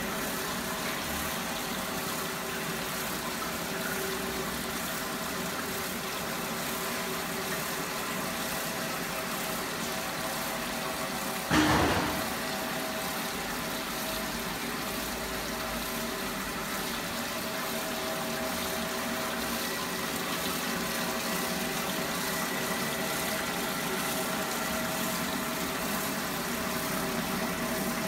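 Wet drum magnetic separators running: a steady machine hum with several constant motor tones, over the rush of water and slurry flowing through the machines. About 11 seconds in there is one sudden loud knock that dies away within half a second.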